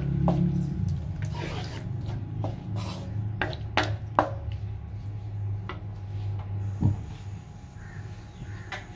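Wooden spatula stirring a thin sauce in a wok, scraping and knocking against the pan in irregular strokes with a few sharp clicks, over a low steady hum.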